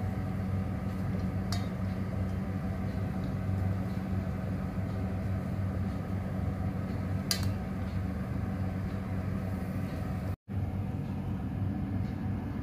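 Steady low mechanical hum with two light clicks. The sound drops out for a moment about ten seconds in.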